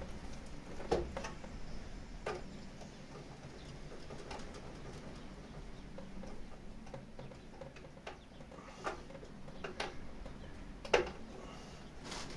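Scattered short clicks and taps from a screwdriver and stiff cable ends working at an inverter's screw terminal block as solar cables are fastened, about five in all, the loudest near the end.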